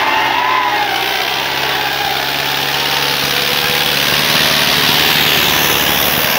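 Sonalika DI 750 tractor's diesel engine running steadily under load as it drags two disc harrows through ploughed soil.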